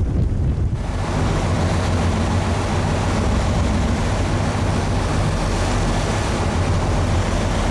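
Boat engine running steadily under a broad rush of wind and water, which comes up about a second in.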